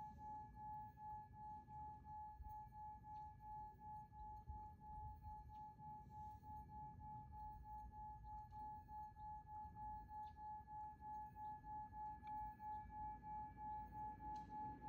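Singing bowl sustaining one steady tone that pulses about three times a second, with a fainter overtone an octave above.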